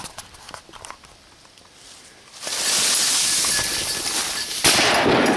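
Loud rustling close to the microphone starts suddenly about two and a half seconds in. Near the end a single shotgun shot cracks out, the loudest sound, fired at a flushed cock pheasant.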